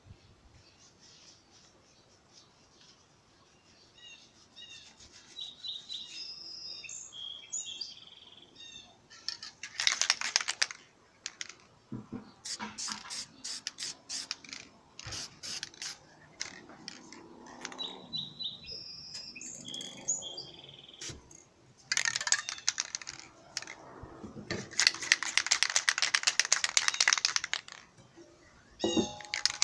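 Aerosol spray paint can: the mixing ball rattles in a run of sharp clicks as the can is shaken, and the paint comes out in several hisses, the longest lasting about three seconds near the end. Birds chirp twice in the background.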